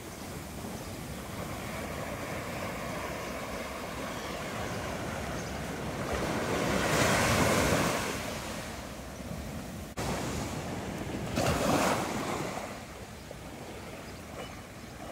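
Small waves washing up on a sandy shore: a steady wash of surf with two louder surges as waves break, the bigger one in the middle and a shorter one a few seconds later.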